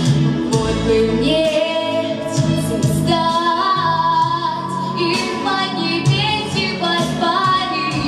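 A girl's voice singing a slow song through a microphone and hall speakers over instrumental backing music, holding long notes with vibrato.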